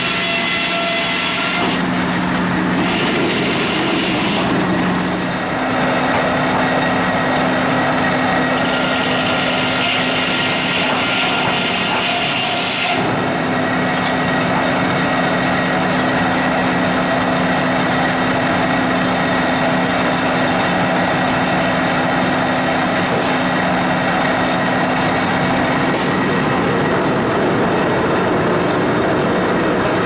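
Century-old double-bladed circular sawmill running with a steady machine hum. Twice, for a few seconds each, a high hiss rises over it as the saw cuts through a log: the first cut about two seconds in, the second from about eight to thirteen seconds in.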